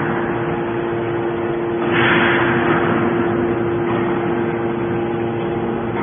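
Hydraulic metal baler running: the steady hum of its hydraulic pump and motor, with a surge of hissing that rises about two seconds in and slowly fades as the press works.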